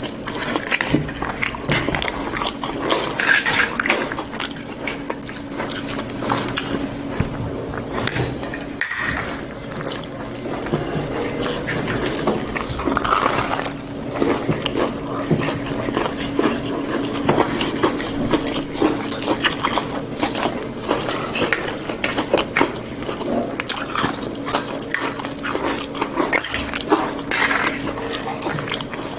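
Close-up eating sounds: wet chewing, lip smacking and crunching of fried chicken, rice and fries, full of short clicks, with a fork now and then scraping and clinking on the plate. A steady low hum runs underneath.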